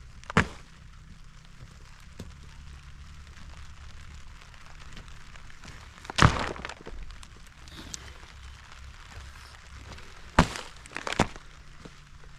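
Wood being broken up: five sharp cracks, irregularly spaced, the loudest about six seconds in and three in quick succession near the end.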